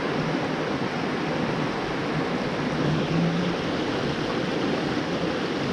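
Steady rush of running water from a small trout stream.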